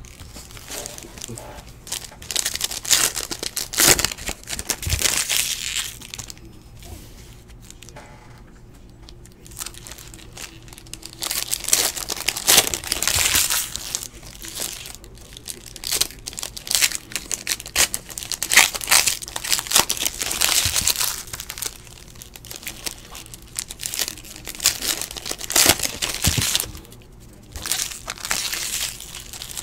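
Foil trading-card pack wrappers crinkling and tearing as packs are ripped open by hand, in busy bursts with quieter pauses between.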